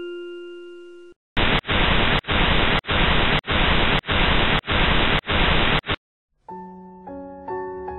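A chime-like music note fades out, then loud TV static hiss runs for about four and a half seconds, broken by short dropouts about every 0.6 s. Soft piano music begins near the end.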